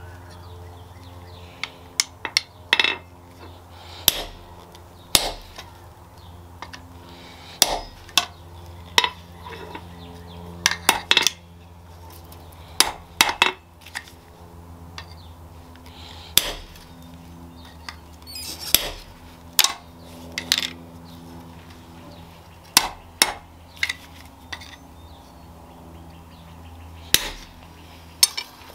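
Irregular metallic knocks and clinks of hand tools striking and handling steel, some singly and some in quick clusters, over a steady low hum.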